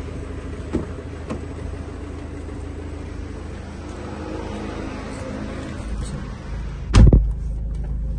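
Car door being opened, with two short clicks from the handle and latch early on, then slammed shut with a loud thump about seven seconds in. A steady low rumble runs underneath throughout.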